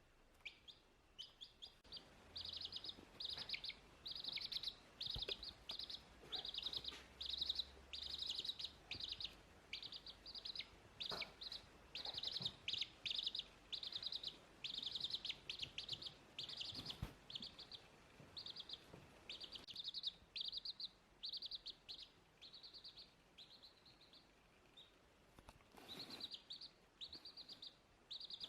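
A bird chirping over and over in short, high, rattling chirps, about two a second, thinning out past the middle and picking up again near the end.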